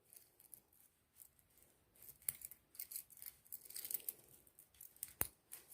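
Warded pick scraping and clicking against the wards inside a 1922 Corbin padlock while the shackle is pulled, searching for the engager without opening the lock. Faint small metallic scrapes, busier about two to four seconds in, and one sharper click about five seconds in.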